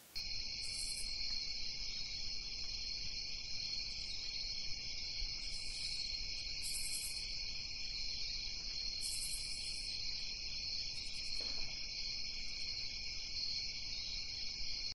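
Insect chorus, crickets by the sound of it, trilling steadily and high-pitched. Short, even higher bursts of chirping come and go every second or two. It starts abruptly.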